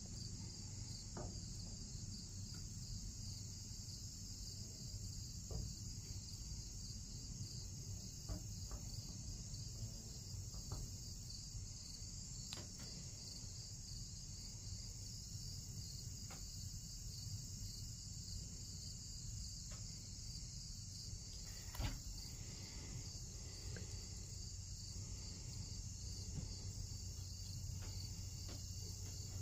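Insects chirping in a steady high pulsing chorus over a low rumble, with scattered faint clicks and taps as a wooden stick works epoxy in a plastic cup and dabs it onto an aluminum canoe hull.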